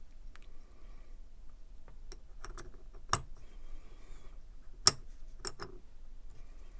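Small metal parts and tools clicking and tapping during hands-on knife cleaning, about half a dozen sharp clicks with the loudest about five seconds in, and light rubbing between them.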